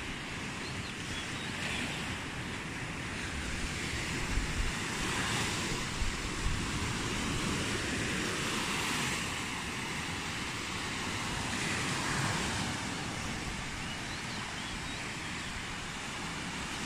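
Small waves breaking and washing up on a sandy beach, the wash swelling and fading every few seconds. Wind buffets the microphone.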